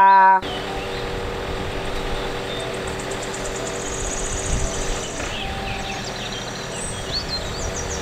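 Truck-mounted aerial work platform's engine running steadily, with birds chirping over it; a rapid high trill comes in the middle and separate chirps follow in the second half.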